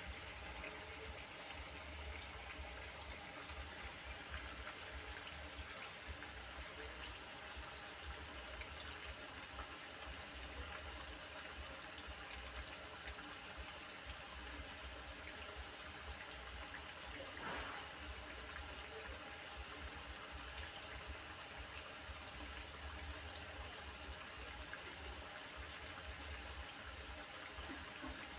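Grated potato fritters deep-frying in hot oil in a frying pan: a steady bubbling sizzle.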